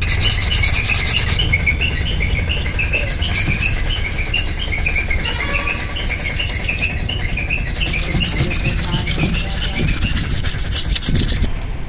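Fast, evenly repeated rubbing strokes on the metal of a Bajaj RE Maxima's removed cylinder head, in three runs with short pauses about a second and a half and seven seconds in.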